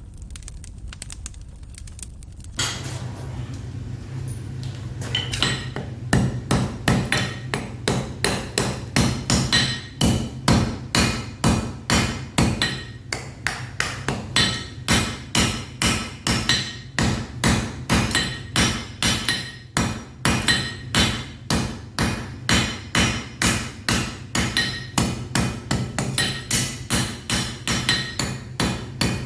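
Blacksmith's hammer striking metal on an anvil in a steady rhythm of about two to three ringing blows a second, starting a few seconds in, over a steady low hum.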